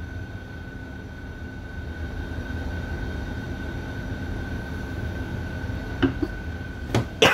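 Steady low background rumble with a constant high-pitched whine. A few knocks come about six and seven seconds in, the loudest at the very end, as plastic squeeze sauce bottles are handled and put down.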